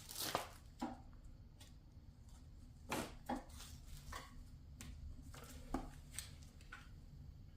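Faint handling noise: a scattering of light knocks and clicks as a portable propane water heater and its packaging are turned over and handled, the sharpest about three seconds in.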